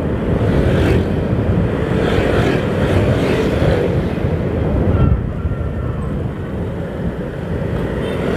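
Riding a motorcycle through traffic of scooters and motorbikes: steady engine and road noise with rushing wind on the microphone, easing off a little about five seconds in.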